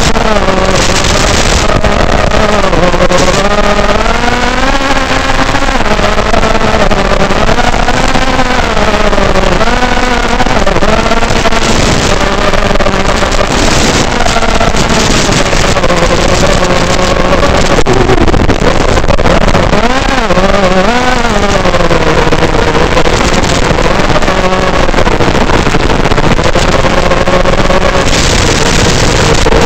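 Realacc X210 FPV racing quadcopter's electric motors whining, the pitch rising and falling constantly with the throttle, over a steady hiss. Several short bursts of louder hiss come through, one of them about fourteen seconds in as the analog video signal breaks up.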